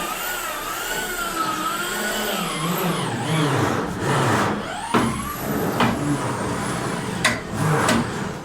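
A motor running with a whine that wavers up and down in pitch and rises once midway, with a few sharp knocks near the end.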